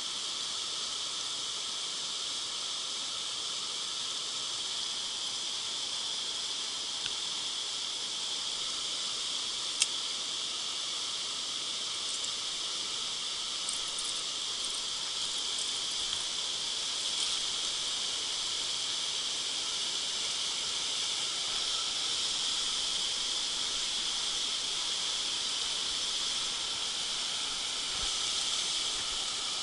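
Steady high-pitched insect chorus, with a single sharp click about ten seconds in.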